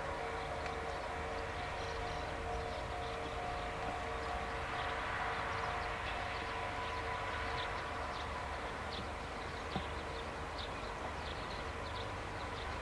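KiHa 40 diesel railcar approaching under power, its diesel engine growling steadily with a held whining tone on top that fades out about eight seconds in.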